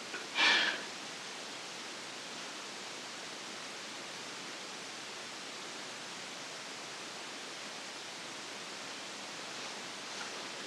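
Steady hiss of the recording's own noise floor in a quiet room, with one short breathy sound about half a second in.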